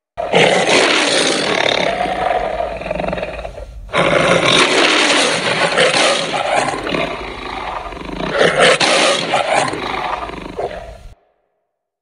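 Designed monster roar for a griffon, a winged lion, mixed from big-cat roars and other animal recordings. One roar of about four seconds is followed at once by a longer second roar of about seven seconds, which swells near its end and then cuts off suddenly.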